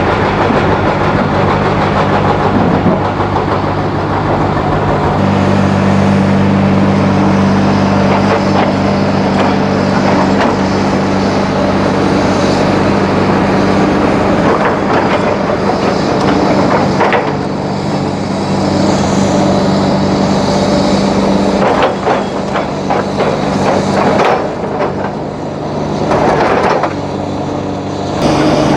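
Large hydraulic excavator working, its diesel engine droning steadily under load, with knocks and scraping of rock and steel throughout. The engine note weakens after about 22 seconds.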